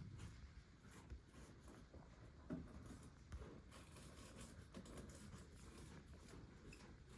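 Near silence: faint room tone with scattered soft rustles and light clicks, and one slightly louder knock about two and a half seconds in.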